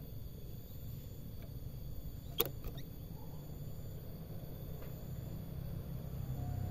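Steady low rumble with faint, steady high-pitched tones, and one sharp click about two and a half seconds in; the caged bird is not singing.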